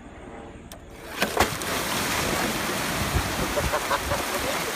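An above-ground pool wall bursts open about a second in with a sudden splash, and a mass of water gushes out in a loud, steady rush.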